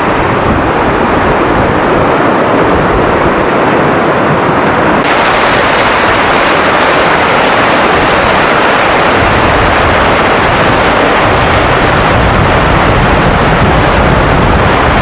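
Krimml Waterfalls, a very high waterfall, roaring with a loud, steady rush of falling water. About five seconds in the sound turns brighter and hissier.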